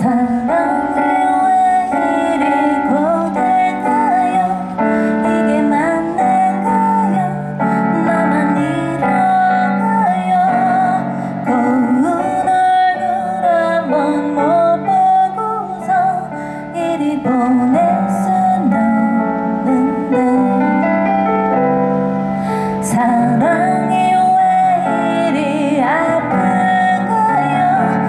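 A woman singing a Korean song live over electric piano accompaniment, amplified through stage speakers.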